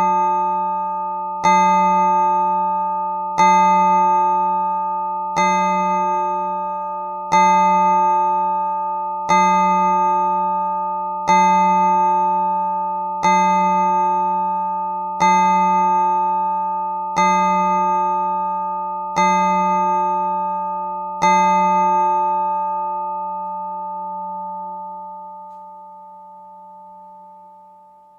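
Chiming clock striking the hour on a single bell tone: eleven identical strokes about two seconds apart, each ringing into the next, the last left to ring out and fade over several seconds.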